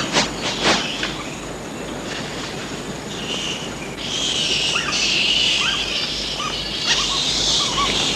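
Tropical forest ambience: a steady high insect drone that swells about four seconds in, with short bird chirps scattered through it. A few sharp knocks sound in the first second.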